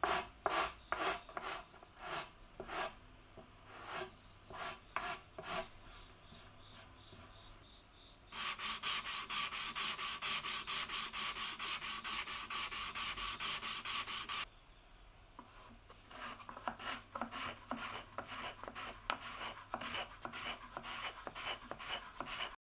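Hand sanding wood with sandpaper. It starts as separate back-and-forth scraping strokes, then turns to fast continuous scrubbing from about 8 to 14 seconds, then quick strokes again near the end.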